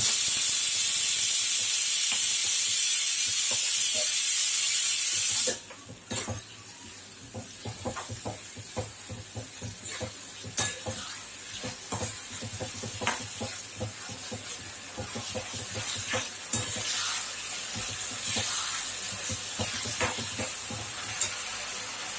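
Chicken Manchurian sizzling in a hot pan: a loud, steady sizzle as the dissolved Manchurian masala liquid goes in, stopping suddenly about five and a half seconds in. After that the frying goes on more quietly, with a spatula scraping and clicking against the pan as it is stirred.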